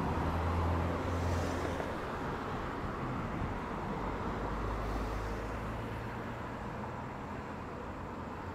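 Road traffic driving past on a multi-lane road. Tyre noise swells as vehicles go by, about one and a half seconds in and again about five seconds in, over a steady low hum.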